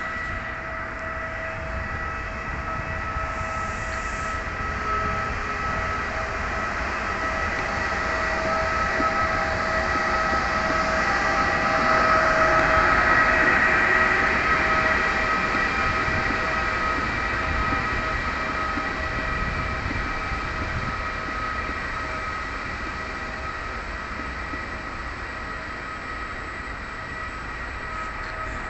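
Electric locomotive hauling double-deck regional coaches past the platform at low speed, with a steady high whine over the rumble of the wheels. The sound swells to its loudest about halfway through, as the train passes closest, then eases as it slows.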